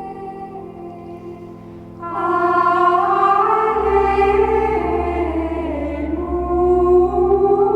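Gregorian chant sung by a choir of Benedictine nuns, the women's voices holding long, slowly moving notes; the singing grows louder and fuller about two seconds in, with a low held tone underneath for a few seconds after that.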